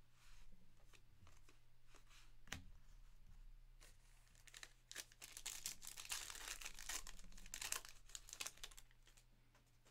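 Foil trading-card pack being torn open and crinkled by hand, the crinkling densest about five to eight seconds in, after a few light clicks as cards are handled.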